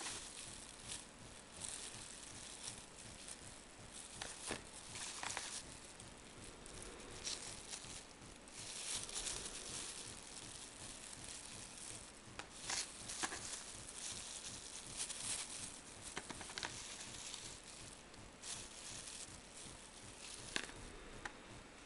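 Faint, irregular rustling and crinkling of things being handled, with scattered soft clicks and a few louder brief bursts.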